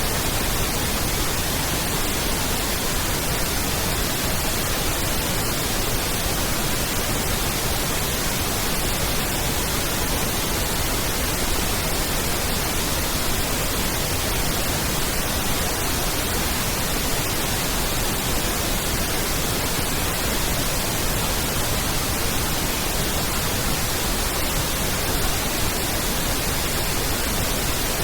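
Pink noise test signal: a steady, even hiss spread across all frequencies, used for aligning and equalising a sound system.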